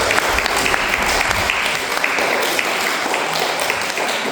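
A hall full of young children clapping: a steady, dense round of applause.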